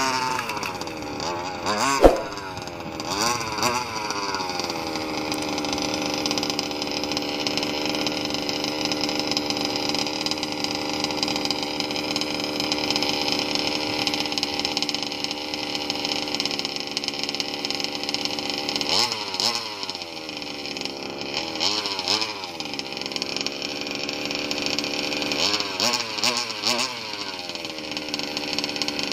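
Two-stroke petrol engine of a Rovan Baja RC buggy running on its freshly overhauled carburetor: revving up and down at first, holding a steady note for about twelve seconds, then blipped up and down several times near the end. A single sharp knock about two seconds in.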